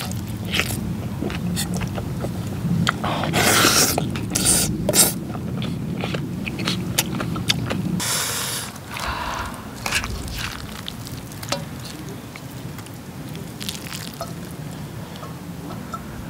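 Close-miked eating of bibimbap topped with fried egg: slurping and chewing, louder in the first half. From about halfway it turns to quieter chewing with scattered clicks and scrapes of utensils against the cauldron-lid pan.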